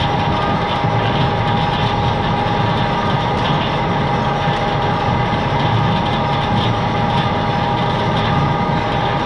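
Potato grader, conveyors and elevator running: a steady, loud machine din with a constant high hum, as potatoes travel along the belts and up the elevator into the store.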